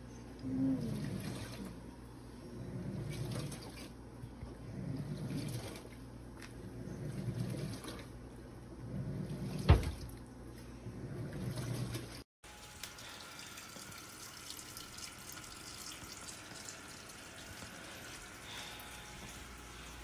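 Black+Decker portable washing machine agitating: water and clothes slosh back and forth in swells about every two seconds, with one sharp click about ten seconds in. After a cut, a steady rush of running water during a rinse cycle.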